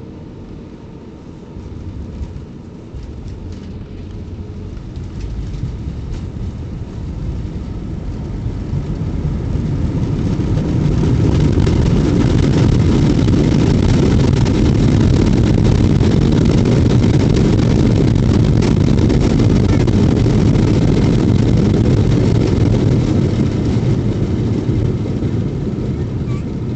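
Airbus A320 landing rollout heard from the cabin: a few knocks about two seconds in, then the engine roar builds into reverse thrust with hard braking, loudest in the middle and easing off near the end as the jet slows. The uploader calls it a very hard brake sound.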